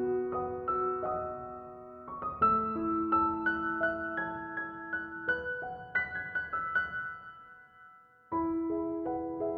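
Piano music with chords and melody notes that ring and die away. Near the end it fades almost to nothing, then a new phrase starts suddenly.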